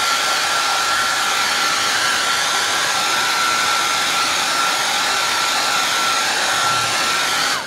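Small hand-held hair dryer running on its high setting, blowing air over a wet paint wash to dry it between layers: a steady high whine over rushing air. At the very end it is switched off and the whine drops away.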